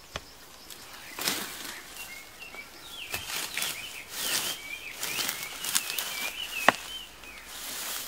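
A hoe scraping and dragging loose soil back into a freshly dug hole, in several strokes, with one sharp knock of the blade near the end. A bird sings a warbling, chirping song over it through the middle.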